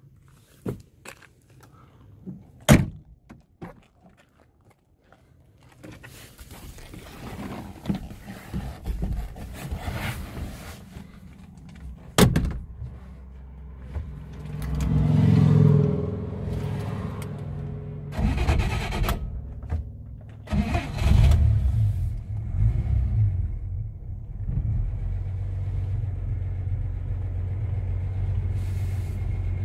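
A few sharp knocks in the first seconds, then a 1937 Chevrolet Master's straight-six engine is started and revs up several times before settling into a steady idle near the end.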